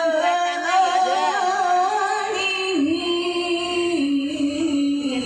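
Music with a woman singing a wavering melody that steps down to lower held notes about three seconds in.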